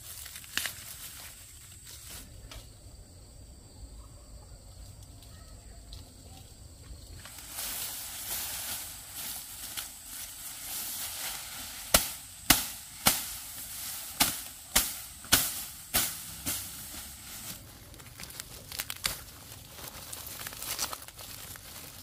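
A run of about ten sharp strikes at an even pace of roughly two a second, over a steady hiss, followed by scattered lighter clicks.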